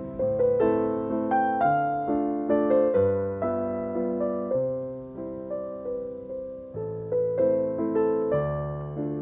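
Background piano music: a gentle melody of struck notes, each fading before the next, with a slow bass line.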